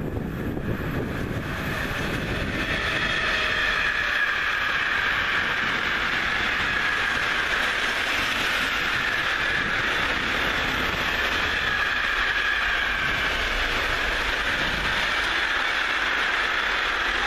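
Container freight train behind an electric locomotive rolling past close by: steady rolling and clatter of the wagons' wheels on the rails, with a high-pitched ringing over it. It swells over the first couple of seconds as the locomotive arrives, then holds steady.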